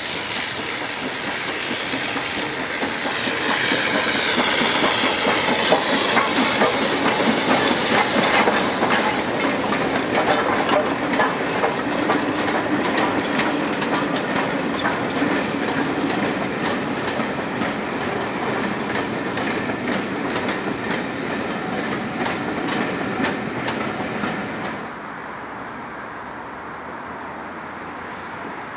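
LMS Stanier Class 5 'Black 5' 4-6-0 steam locomotive and its train of coaches running past, wheels clattering over rail joints with steam hiss, and a falling high tone a few seconds in. About 25 seconds in the sound drops abruptly to a much quieter low hum.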